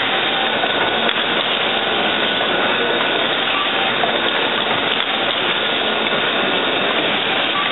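Automatic hypodermic needle assembly machine running: a steady, even mechanical noise with a faint high tone held through it.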